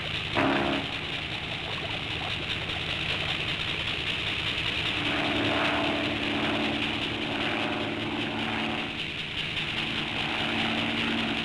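Steady electrical hum and whir of cartoon laboratory machinery, on an old, hissy soundtrack. A short squawk from the vulture comes about half a second in, and a low droning tone joins the hum from about five seconds in.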